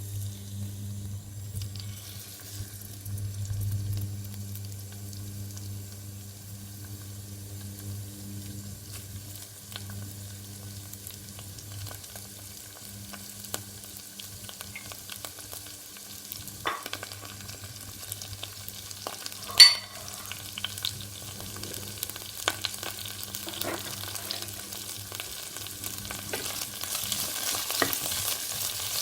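Food sizzling as it fries in a pan, with a spatula stirring and scraping in small clicks over a steady low hum. There is one sharp metal clink about two-thirds of the way through, and the sizzle grows louder near the end.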